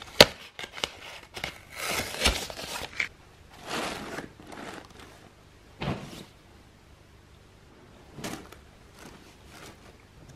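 Clothes and a fabric suitcase being handled while packing: irregular rustling of folded shirts, with a sharp click just after the start and a longer rustle about two seconds in.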